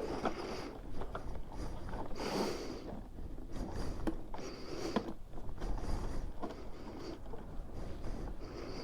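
Hands working in the tight space behind a motorcycle's front fairing, threading a speedometer cable's collar on by hand. Irregular rustling and rubbing, with scattered small clicks and knocks of plastic and metal.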